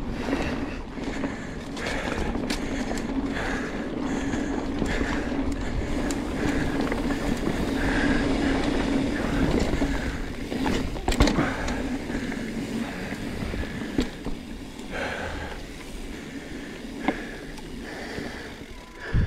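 Mountain bike rolling downhill on a dirt forest trail: a steady rush of knobby tyres on dry dirt, with sharp knocks and rattles of the bike over bumps, the loudest about eleven seconds in. The rolling noise eases in the second half.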